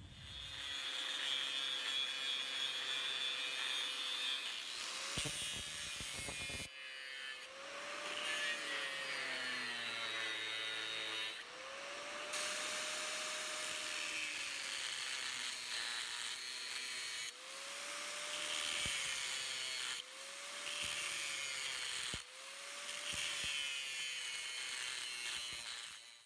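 Angle grinder cutting W2 high-carbon steel bar along a blade outline: the disc grinds through the metal with a hiss over a steady motor whine that rises and sags back as the cut bites and eases. The sound comes in several stretches separated by sudden breaks.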